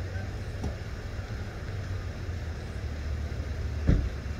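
Low steady rumble of an idling car, with one short thump near the end.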